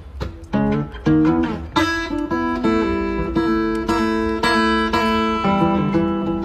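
Background music on acoustic guitar: a run of quick plucked notes, then strummed, ringing chords from about two seconds in.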